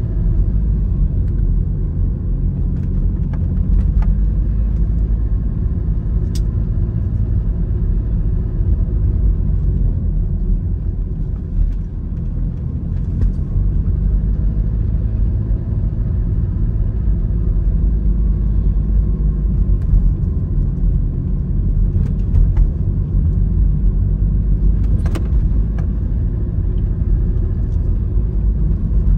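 Steady low rumble of a road vehicle driving, engine and tyre noise, with a couple of brief clicks, one about six seconds in and one near the end.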